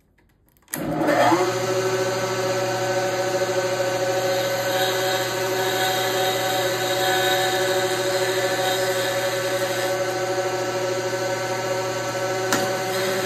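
Milling machine spindle motor switching on under a second in, quickly rising in pitch, then running steadily with a whine of several tones as the end mill cuts along the edge of a marbled carbon-fibre knife scale. One short click near the end.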